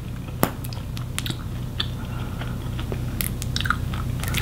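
Small plastic squeeze tube of candy jelly being squeezed over a gummy candy: scattered soft clicks and crackles, with one sharper click about half a second in, over a steady low hum.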